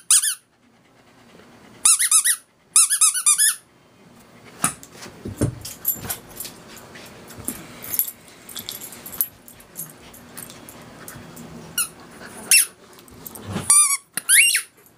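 Australian shepherd puppy biting down on a squeaky ball: short bursts of high squeaks, a quick run of them about three seconds in and more near the end. Soft knocks and taps come in between.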